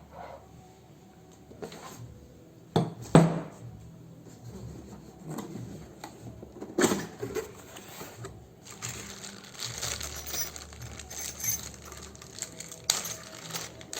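Small metal tool pieces being handled: a few sharp knocks, then a quick run of light metallic clinking and rattling, like drill bits being sorted out of their case.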